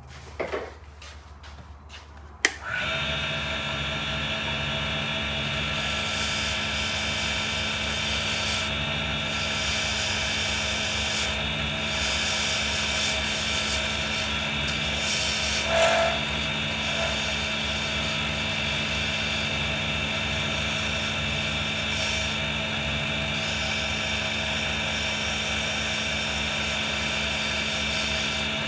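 Small wood lathe switched on with a click about two and a half seconds in, then running steadily with a motor whine while a resin pen blank spins on it. The high hiss rises and falls at intervals.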